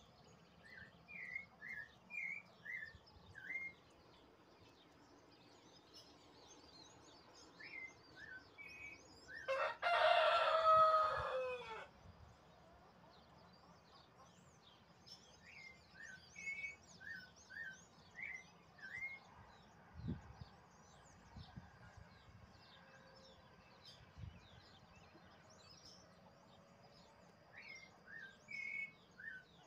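A rooster crows once, loud, about ten seconds in, its call falling in pitch at the end. Small birds chirp in short bursts of quick notes before and after.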